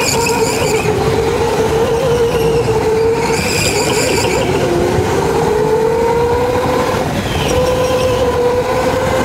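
Electric go-kart's drive motor whining at speed, its pitch dipping about halfway through and climbing again, over continuous tyre and track noise. Two brief high squeals come near the start and about a third of the way in.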